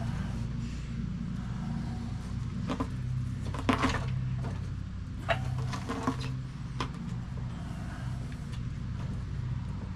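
Infiniti QX80's under-floor spare tire winch being cranked up by hand with the jack rod: a few scattered metal clicks and clanks, the loudest about four seconds in, over a steady low hum.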